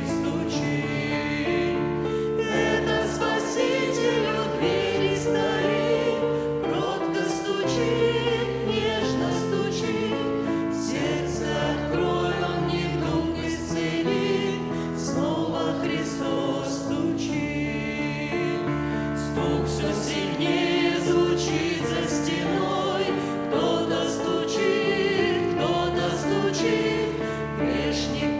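A hymn sung by a choir with instrumental accompaniment: sustained voices over steady held bass notes.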